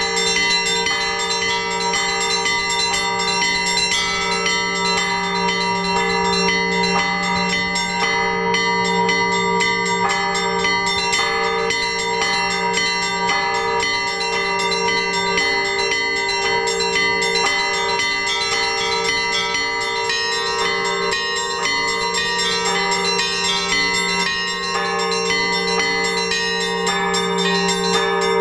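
Orthodox church bells rung by a bell-ringer in a trezvon, the weekday ringing: small bells struck in a quick, continuous pattern over the steady ring of larger bells.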